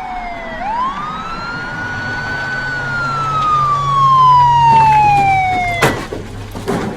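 Police car siren wailing: its pitch swoops up about half a second in, holds, then slowly falls and stops with a sharp knock about six seconds in.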